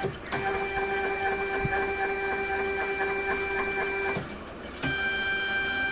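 Stepper motor of a DIY desktop CNC driving the Y-axis table along its lead screw, a steady pitched whine for about four seconds. It stops briefly and the motor starts a second move with the same whine.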